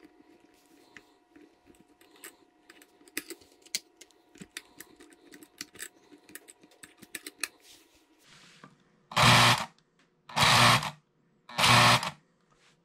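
Small milk cans clicking and clattering as they are loaded by hand into a Lionel 3472 automatic refrigerated milk car, over a faint steady hum. Near the end, three loud buzzes of about half a second each as the remote-control button is pressed three times, working the car's solenoid unloading mechanism.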